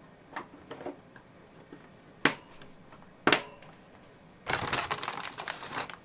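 A DDR server memory stick being pressed into a motherboard DIMM slot: a few light taps, then two sharp clicks about a second apart as the slot's latches snap shut. Near the end, a plastic bag crinkles for about a second and a half.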